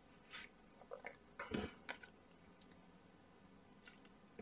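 Faint handling of glossy football trading cards as a stack is flipped through by hand: a few soft clicks and rustles of card against card over about the first two seconds, otherwise near silence.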